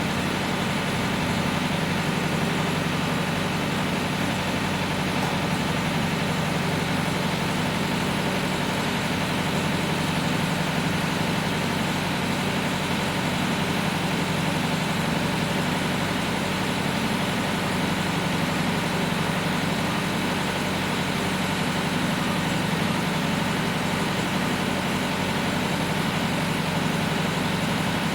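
Tractor engine running steadily, an even drone that holds without change.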